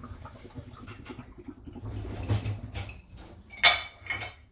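Hands pressing and tucking a raw pastry crust over a pie dish, the dish knocking and shifting on a stone countertop, with a sharp clink near the end.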